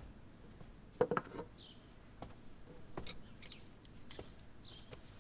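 Scissors and other small items being handled: sparse light clicks and snips, a small cluster about a second in and a few more later.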